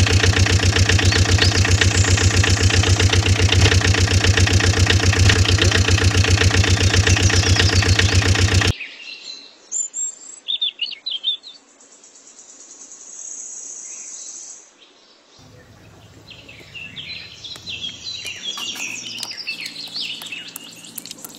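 Engine running with a steady, rapid, even pulse, which cuts off abruptly about nine seconds in. Birds then chirp and call, with a steady high tone for a couple of seconds in between.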